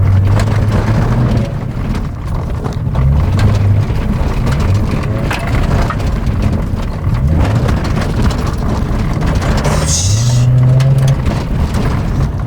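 Ordinary road car driven fast on a rough dirt track, its engine revving up and easing off several times, over steady tyre and gravel noise with frequent knocks and rattles from the rough surface. A brief hiss comes about ten seconds in.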